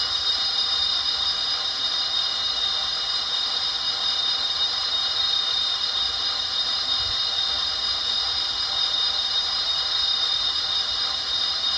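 Sound system of a Rapido HO-scale Turbo 2 model train playing the turbine engine sound: a steady high whine over an even hiss.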